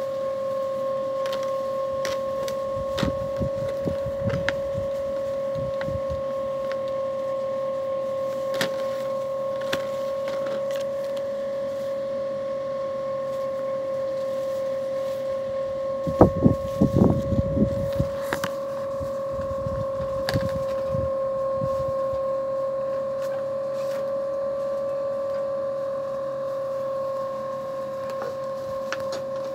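A steady mid-pitched hum: one constant tone with a fainter overtone above it. A few light clicks are scattered through it, and there is a short stretch of muffled irregular noise about sixteen seconds in.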